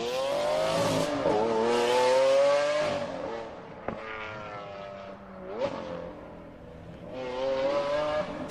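Supercar engines accelerating hard, the pitch climbing and dropping back at gear changes, fading and building again as the cars pass.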